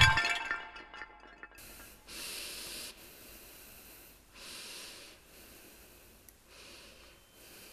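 A person breathing heavily in distress: three slow, audible breaths about two seconds apart, after the end of a scream fades out in the first second.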